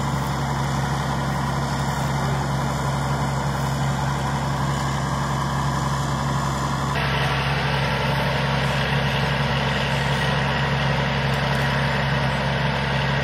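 A steady engine idling nearby, a constant low hum with hiss above it that turns a little hissier about halfway through.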